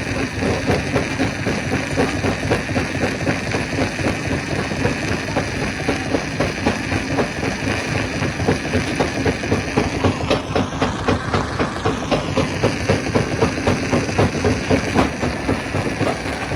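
Stone crusher machine running, with a steady rhythmic pulsing of about three beats a second over a continuous mechanical rumble.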